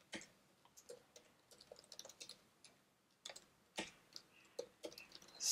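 Faint computer keyboard typing: scattered single keystrokes with short pauses between them.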